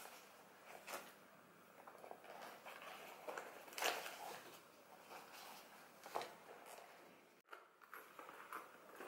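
Quiet handling sounds of small plastic items being taken out of a zippered fabric pouch and set down on a cloth-covered table: soft rustling with a few light taps, the clearest about four seconds in and again about six seconds in.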